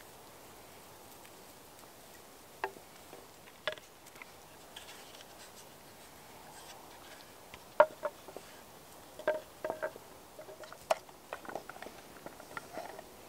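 Scattered light knocks and clicks of wooden camp gear and a small lantern being handled and hung on a branch. A few come early, then a denser run in the second half, with the sharpest knock about eight seconds in.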